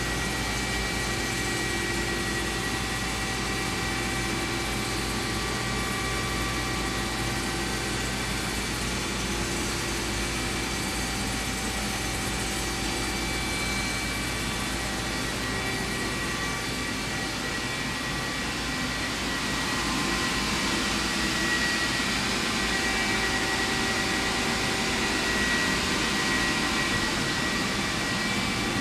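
Steady mechanical hum with a constant whine, from a powered-up Hwacheon CUTEX 240 SMC CNC lathe standing idle. It grows slightly louder about two-thirds of the way through.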